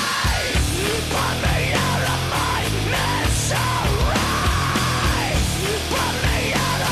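Loud heavy metal music with shouted vocals over a dense, continuous band.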